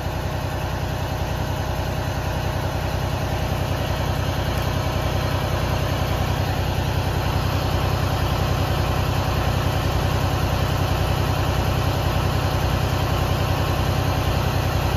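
Detroit DD15 inline-six diesel in a Freightliner Cascadia running steadily at a raised idle of about 1,260 rpm during a parked DPF regeneration: an even low drone with a faint steady whine above it.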